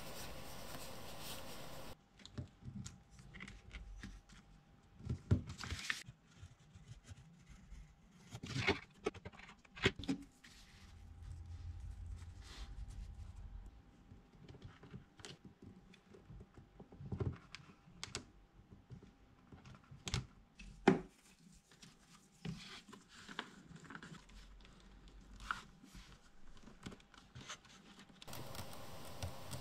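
Hand tools and leather being handled on a workbench: scattered, irregular clicks, taps and light rustles, with one sharper knock about two-thirds of the way through.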